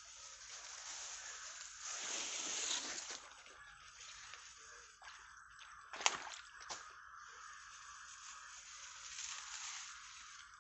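Fast water in a narrow irrigation channel, sloshing and splashing as it presses against a bamboo fish trap. It swells louder for about a second a couple of seconds in, and there is one sharp knock about six seconds in.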